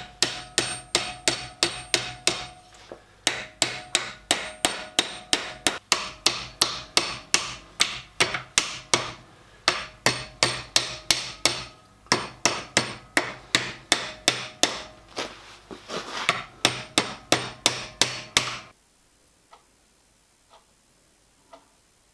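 Rapid hand-hammer blows, about three a second with a few short pauses, of a PTFE-capped hammer on annealed copper sheet being beaten into shape, each blow with a brief ring. The hammering stops near the end, leaving a few faint taps.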